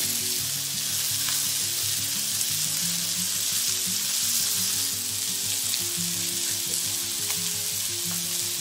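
Marinated shrimp sizzling steadily in hot olive oil in a wok, with a silicone spatula nudging and turning them now and then, giving a few light taps. Soft background music plays underneath.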